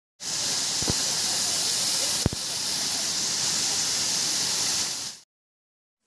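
Waterfall pouring down a rock face into a pool: a steady rushing hiss, with two brief knocks about one and two seconds in, cutting off suddenly about five seconds in.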